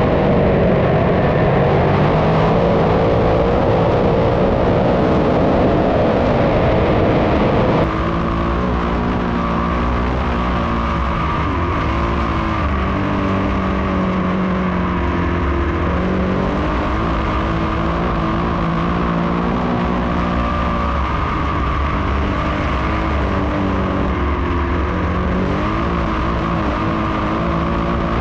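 Dirt-track big-block modified race cars running flat out in a heat race, engines rising and falling in pitch through the laps. About eight seconds in the sound changes abruptly to a different, slightly quieter mix of the engines.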